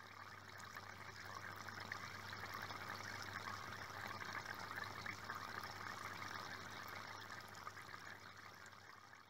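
Faint trickle of water from an aquarium filter's outflow, over a low steady hum; it fades in about a second in and fades out near the end.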